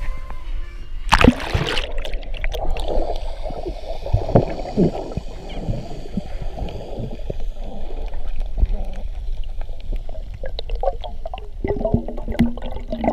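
Sea water sloshing and gurgling, muffled, with a sharp splash about a second in.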